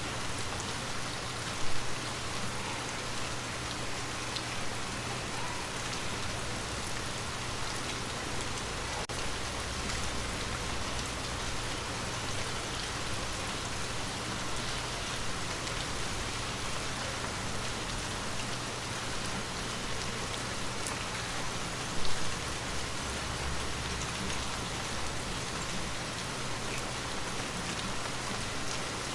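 Steady rain falling on a window, an even patter without pause. Twice, about two seconds in and near the twenty-two second mark, a brief louder bump stands out.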